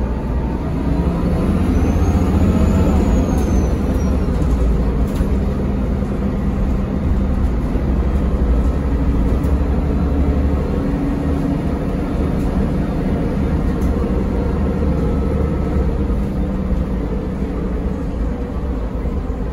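Mercedes-Benz O405NH city bus heard from inside the passenger cabin: the rear-mounted engine and running gear give a steady low rumble, with a faint high whine rising and falling a few seconds in.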